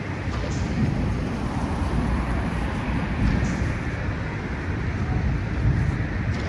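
Storm wind gusting over the microphone as a steady rushing noise with a heavy, uneven low rumble, rising again near the end.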